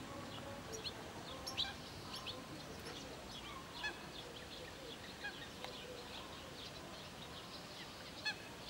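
Wild birds calling around a reedy wetland pond: a busy scatter of short, high chirps, with fainter lower calls underneath and a steady outdoor hiss.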